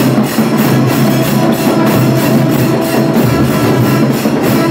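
Music with a fast, steady drum beat of about five strokes a second under held melodic notes.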